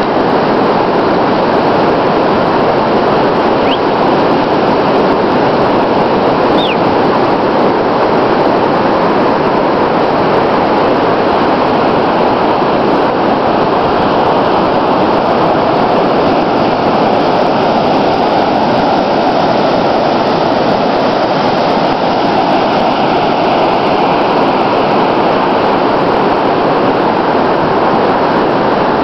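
Steady, loud rushing of wind buffeting the microphone, mixed with the wash of surf on an open beach. Two brief faint chirps sound a few seconds in.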